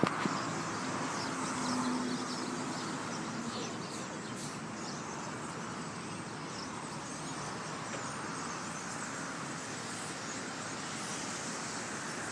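Dense, steady chatter of a huge flock of small black birds calling all at once, over a constant rushing background noise.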